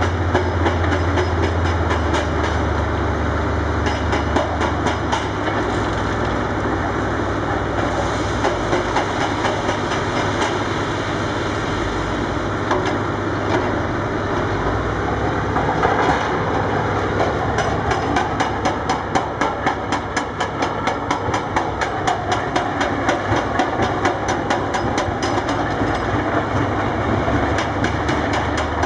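Hydraulic breaker on a Volvo EC240B excavator hammering rock in a rapid, even series of blows, over the steady drone of diesel engines.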